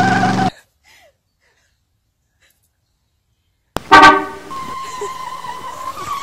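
Dubbed-in car sound effects: a car horn sounding steadily, cutting off about half a second in, then about three seconds of silence. Near four seconds a sudden loud blast starts and settles into a steady high whine.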